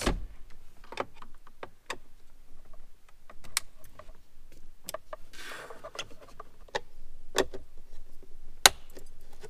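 A hand tool on a long shaft working out the gauge cluster screws in a Jeep Wrangler JL dashboard: scattered irregular clicks and taps, a short rasp about five and a half seconds in, and one sharp click near the end, the loudest.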